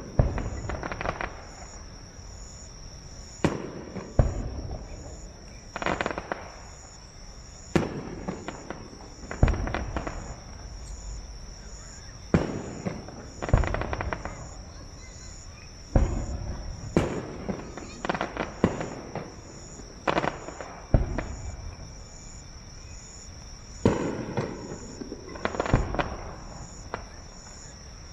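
Aerial firework shells bursting one after another, about fifteen sharp booms one to three seconds apart, each trailing off in crackle and echo. A steady, high-pitched pulsing sound runs underneath.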